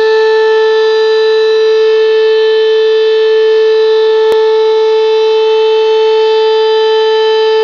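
Fire station alarm siren sounding loud and steady on one held pitch, calling the volunteer firefighters out to an emergency.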